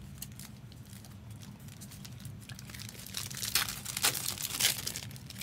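Foil wrappers of Upper Deck Marvel Platinum trading-card packs crinkling as they are handled and torn open, the crackling picking up about halfway through.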